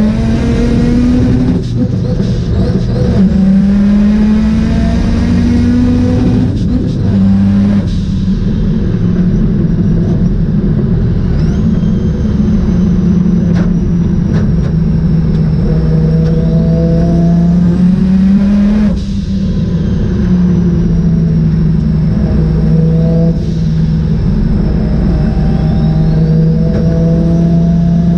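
Mazda RX-7 rotary engine running hard under load, its pitch climbing slowly in each gear and dropping sharply at the upshifts, a few times over.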